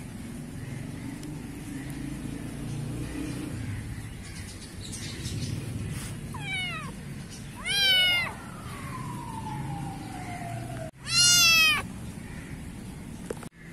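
Kitten meowing: one faint meow about six and a half seconds in, then two loud, high meows about three seconds apart.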